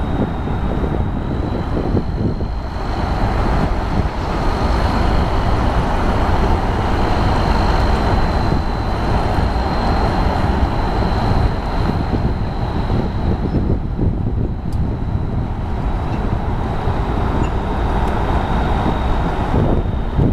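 Steady low rumble of heavy construction machinery and road traffic, with a faint high steady whine.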